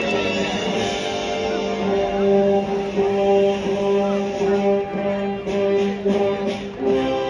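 Music with long held notes that step from one pitch to the next.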